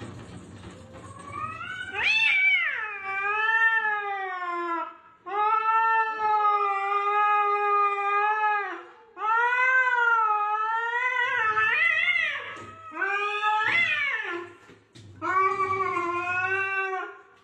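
Domestic cats yowling at each other in a territorial standoff: a string of long, wavering, drawn-out yowls, each a few seconds long, with short breaks between them.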